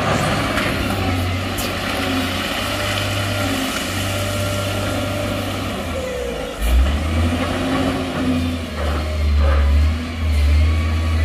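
Heavy diesel earthmoving machine engine running under load, its note rising and falling, with a sudden louder surge about two-thirds of the way through.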